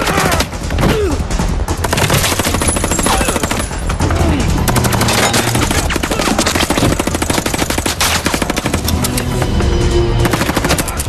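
Rapid automatic gunfire from submachine guns, with a long run of fast shots in the middle, over an action-movie music score.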